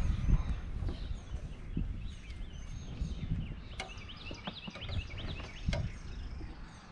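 Outdoor ambience: birds chirping, with a quick run of short chirps in the middle, over a steady low rumble and a couple of light clicks.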